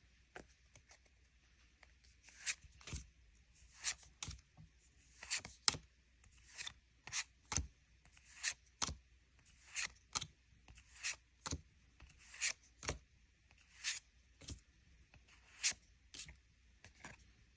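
Pokémon trading cards being slid one by one off the stack of a freshly opened booster pack: about twenty short papery swishes, a fresh one every half second to a second, starting a couple of seconds in.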